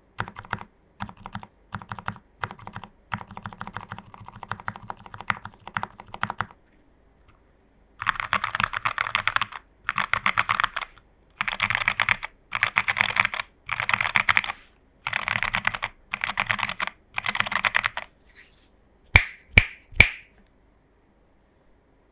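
Typing on a mechanical keyboard: a plateless TU40 plastic-case board with case and PCB foam and a tape mod, fitted with Jwick Nylon switches and XMI keycaps. A run of steady typing, a short pause, then fast typing in bursts about a second apart, ending with three louder separate knocks.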